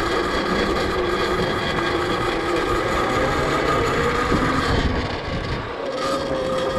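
Electric pit bike's QS Motor 2000 W mid-drive motor and chain drive whining steadily under way, over a rumble of tyre and wind noise on the microphone. The sound dips briefly about five seconds in, then picks up again.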